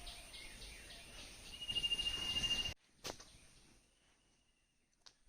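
High-pitched insect trilling, a steady buzzing tone with a faster pulsing chirp behind it, that stops abruptly a little over halfway through, leaving near quiet broken by a single click.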